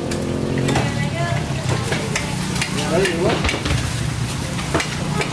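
A large curved knife slicing through a barracuda on a wooden chopping block: scratchy cutting with scattered sharp clicks as the blade meets bone and wood. A steady low engine hum runs underneath.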